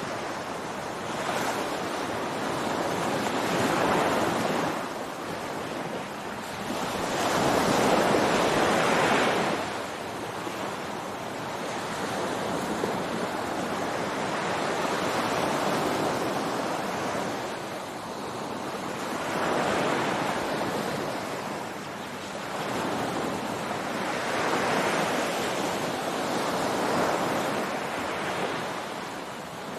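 Ocean surf breaking on a beach, waves swelling and washing in one after another every few seconds.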